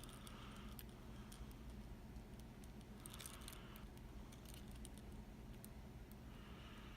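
Faint, scattered small metallic clicks and light scraping as the disassembled pin-tumbler lock's core and pins are handled, over a low steady hum.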